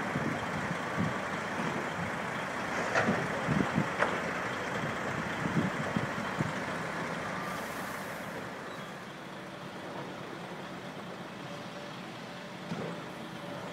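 Heavy demolition machinery, excavators and dump trucks, running steadily, with a few sharp knocks and clanks of rubble or metal between about three and six seconds in. The noise eases somewhat in the second half.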